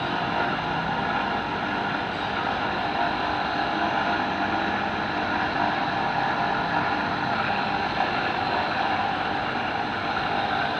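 Finned electric bench motor running steadily and spinning a drill chuck, with a common-rail injector control valve held against it to lap its seat with grinding paste.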